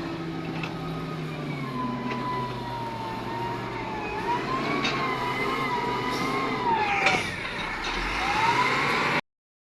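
Heavy diesel machinery running steadily, with a high whine over it that wavers up and down in pitch. The sound cuts off suddenly near the end.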